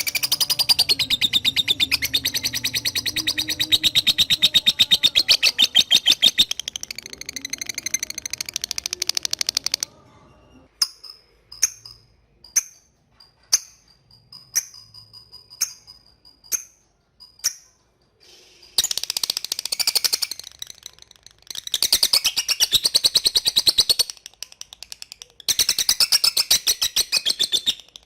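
Lovebird giving long bursts of rapid, high-pitched chattering, broken in the middle by about eight single sharp chirps spaced about a second apart, then three more chattering bursts.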